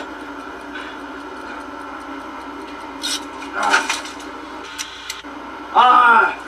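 A hand digging through a trap's contents makes a few short rustling and clicking noises over a steady hum. About six seconds in, a man cries out loudly for half a second, his pitch bending up and down.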